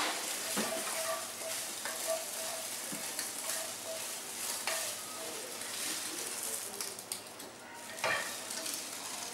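Food sizzling in a frying pan while a wooden spatula stirs and scrapes it, with scattered knocks of the spatula against the pan.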